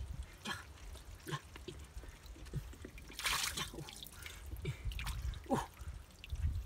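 Hands working in a shallow pool of muddy water, with scattered drips and small splashes, and one louder splash of water a little past halfway.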